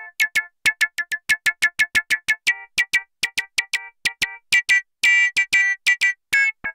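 Novation Circuit Tracks synth preset playing a fast sequenced pattern of short, bright plucked notes, about six a second, with one longer note a little after five seconds.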